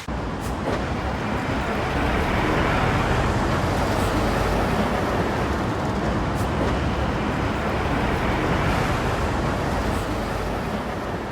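Road traffic noise: a steady rush of passing vehicles, swelling slightly in the middle and easing off near the end.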